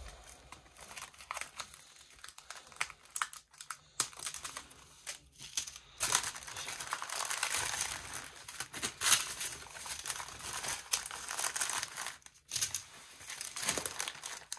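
Clear plastic bags of diamond-painting drills crinkling and rustling as hands dig through them. The crinkling gets busier and louder about halfway through.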